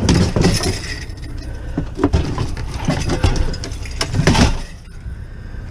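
Scrap items being handled and moved: irregular clunks and clinks, about five knocks, the last a little after four seconds in, then quieter.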